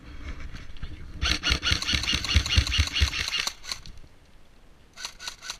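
Airsoft gun firing on full auto: a rapid, even clatter of shots for about two seconds, starting a second in, with low thumps underneath. A short burst of a few more shots comes near the end.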